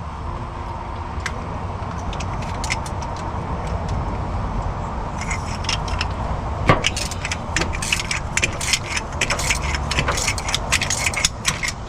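A hand ratchet clicking and metal tools clinking as the water pump mounting bolts are backed out. The clicks come sparsely at first and turn quick and dense about halfway through, with one sharper knock.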